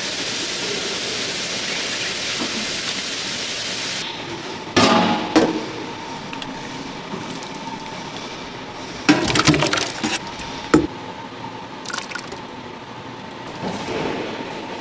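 Food-processing machinery on a fried-rice production line: a steady hiss that cuts off about four seconds in, then scattered metallic clanks and clinks over a steady machine hum.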